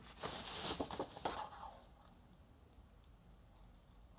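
Hands handling a hardcover book, a short rustle of the cover sliding with a few light taps, in the first second and a half; then quiet.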